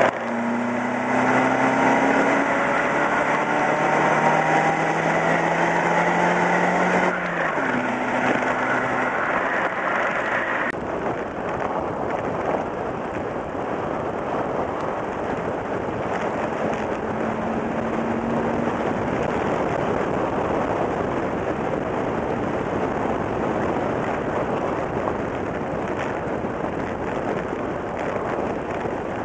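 Car engine accelerating, its pitch rising steadily, then dropping about seven seconds in and climbing again. From about eleven seconds on the engine gives way to a steady rush of wind and tyre noise on a camera mounted outside the car.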